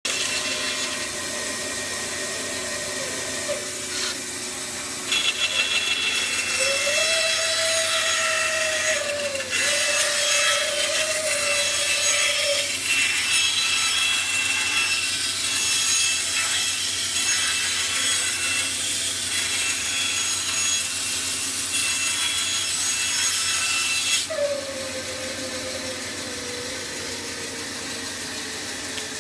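Bandsaw ripping a strip of wood: the saw runs steadily, gets louder and harsher for a long cut from about five seconds in until about twenty-four seconds, then runs on without load.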